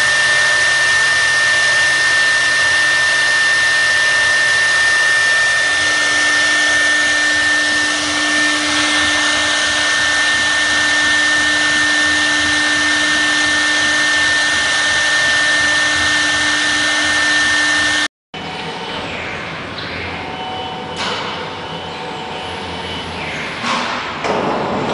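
CNC wood router's spindle running and cutting a wood cylinder turned on the rotary axis: a steady high whine over a loud hiss. It cuts off suddenly about eighteen seconds in, giving way to quieter, uneven background noise.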